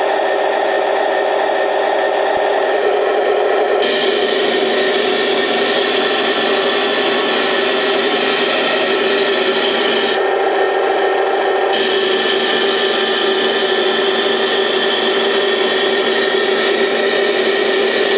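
Sound unit of a Taigen 1/16 scale Tiger II RC tank playing its simulated tank engine running through the model's small speaker, a steady buzzy drone. Its tone changes about four seconds in and again briefly around ten seconds in.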